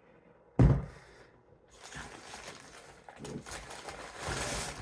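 A single knock about half a second in, then rustling and crinkling of takeout food packaging being handled, loudest near the end.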